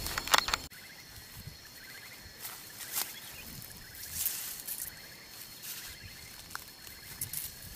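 Rustling and crackling of leafy brush and grass as someone pushes and crouches into the bushes, over a background of insects chirping in short trills.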